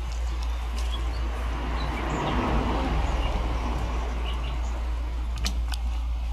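Nature sound-effect recording of birds chirping, played through a small speaker fed from an MP3/FM transmitter, with a swell of rushing noise about two seconds in. A steady low hum runs underneath.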